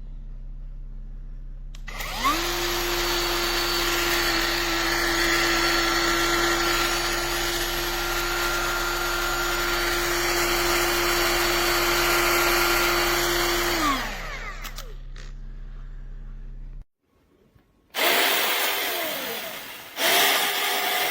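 Cordless electric mini chainsaw running: about two seconds in its motor spins up to a steady whine, runs for about twelve seconds, then spins down. After a short break it is run again in two short bursts, each dropping in pitch.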